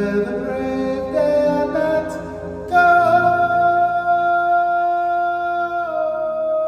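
Male solo voice singing a ballad with live keyboard and band accompaniment, moving through a run of notes, then holding one long note from about three seconds in that steps down slightly near the end.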